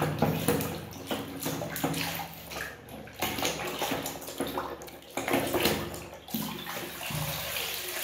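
A hand sloshing and splashing in a basin of soapy water while scrubbing a toy under the surface, in irregular swishes and splashes.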